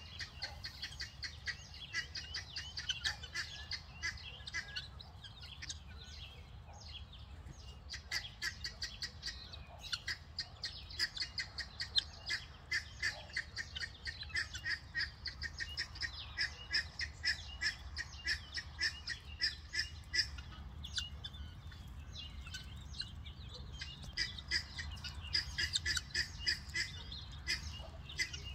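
A helmeted guineafowl flock with young keets calling: a dense run of short, high-pitched notes, several a second.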